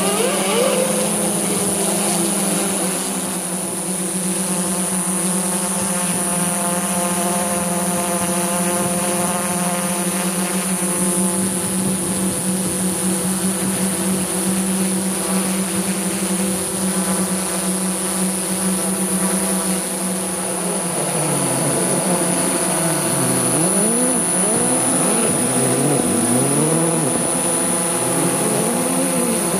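DJI S900 hexacopter's electric motors and propellers humming steadily as it flies, with a thin high whine over them. In the last third the hum's pitch swings up and down again and again as the motors change speed.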